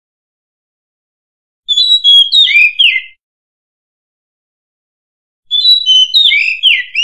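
Oriental magpie-robin singing: two short phrases of quick, varied whistled notes, one about two seconds in and another starting near the end, with silence between.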